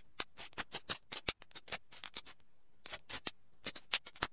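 Baralho Cigano playing cards dealt one after another from the deck onto a cloth-covered table: a quick run of crisp card flicks and taps, several a second, with a short pause a little past halfway.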